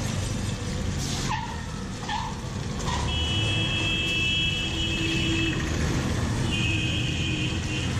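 Medu vadas (minapa garelu) sizzling steadily in a large kadai of hot oil, over street traffic noise. A high, steady vehicle horn sounds twice, for about two seconds from roughly three seconds in and again briefly near the end.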